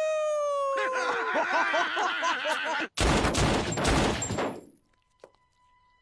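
A cartoon wolf's long howl, slowly falling in pitch, joined by a chorus of overlapping howls. About three seconds in, a burst of rapid gunfire cuts them off, lasting about a second and a half.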